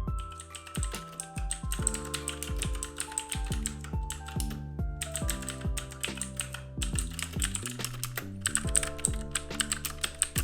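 Fast typing on a mechanical keyboard fitted with mother-of-pearl lacquered keycaps: a rapid, continuous run of key clacks with a few brief pauses. Background music plays underneath.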